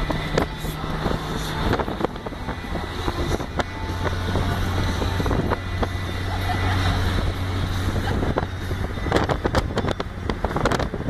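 Car driving along, with steady engine hum and road noise heard from inside the moving car. A run of crackles and thumps near the end, like wind buffeting the microphone.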